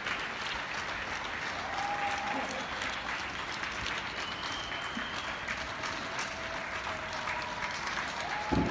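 Many people clapping at once from the surrounding flats: a steady crackle of distant applause, with occasional voices calling out over it. A low thump comes near the end.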